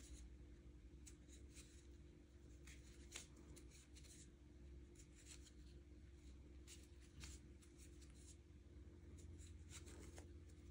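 Faint, irregular soft ticks and rustles of a crochet hook pulling yarn through single crochet stitches, over a low steady room hum.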